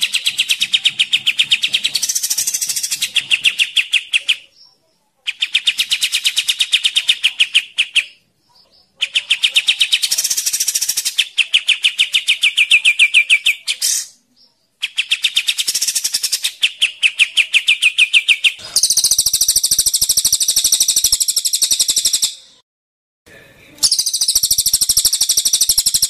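Caged cililin (crested jay) and kapas tembak bulbul calling: several-second bursts of rapidly repeated rattling notes with short pauses between them. From about two-thirds of the way through, harsher, higher-pitched rattling bursts take over.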